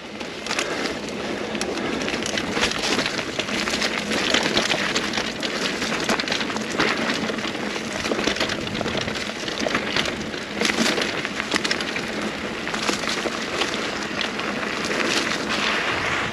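Mountain bike knobby tyres rolling over dry dirt and leaf litter on singletrack, with a continuous irregular crackle and rattle from the bike over small bumps.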